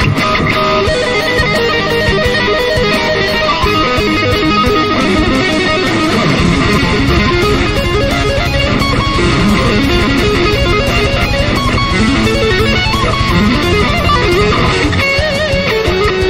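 Background music led by guitar, with a fuller low end coming in about six seconds in.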